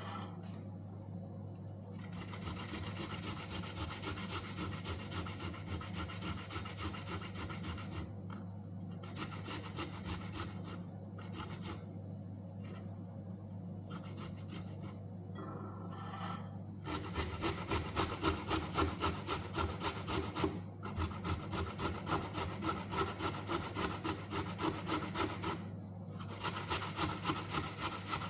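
Fresh ginger root being grated: quick repeated strokes, about three to four a second, in spells broken by short pauses and louder in the second half.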